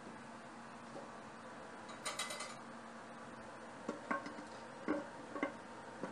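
Kitchen clatter: a ringing clink of metal or crockery about two seconds in, then a few light knocks and taps of utensils and cookware.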